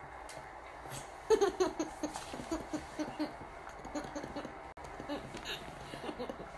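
A toddler laughing: a long run of short giggles that starts about a second in, loudest and falling in pitch at first, then carrying on a few times a second.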